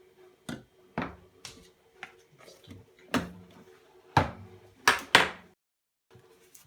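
A series of sharp knocks and clatters, about eight irregular hits with the loudest pair about five seconds in: kitchen utensils and containers being handled while a milkshake is made.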